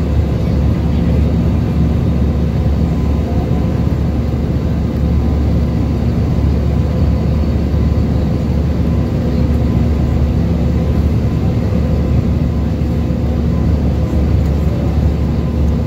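Steady jet engine and airflow noise inside the cabin of an Airbus A320neo in flight, a constant low din with a few faint steady humming tones over it.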